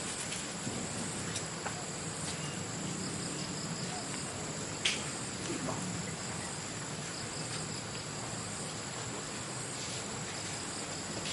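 Insects singing outdoors, a steady high-pitched drone, with one short click about five seconds in.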